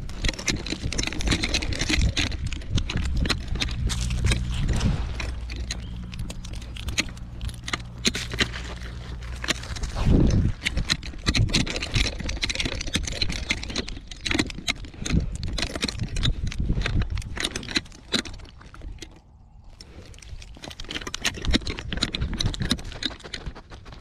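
Metal collar tags jangling and the collar rubbing against a collar-mounted camera as a Weimaraner walks and noses around on gravel, with a dense run of small clicks and scuffs. A low steady hum sits underneath for about the first ten seconds, and there is one heavier knock about ten seconds in.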